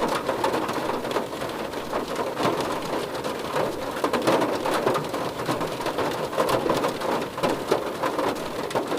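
Rain drumming on a car's roof and body, a dense, steady patter of drops.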